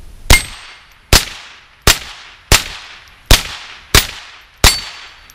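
Seven rapid semi-automatic shots from a Ruger 10/22 .22 Long Rifle rifle, evenly spaced a little under a second apart, each followed by a short echo. A faint ring of steel target plates follows some of the shots.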